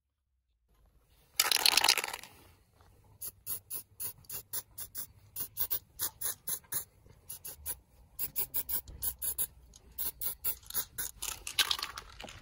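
Aerosol spray-paint can spraying gold paint: a long hiss, then many short quick puffs at about three a second, and another longer hiss near the end.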